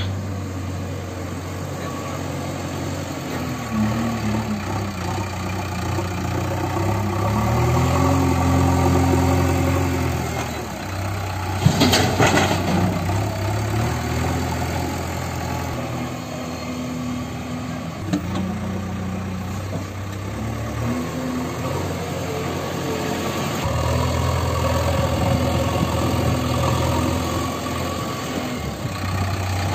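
JCB 3DX backhoe loader's diesel engine running, revving up and settling back several times as the loader works its bucket. A short loud burst of noise comes about twelve seconds in.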